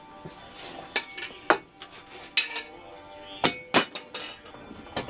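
Sharp metallic clinks and knocks, about six of them spaced irregularly, from a pipe and hand tools being handled and set into a bench vise.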